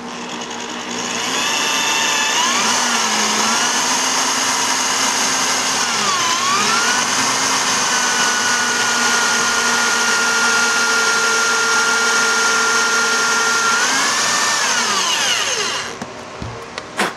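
Corded electric drill run in reverse, its bit working through a boat's fiberglass gel coat; running the drill in reverse keeps the gel coat from cracking. The motor whine dips in pitch about six seconds in, holds steady, then winds down and stops near the end.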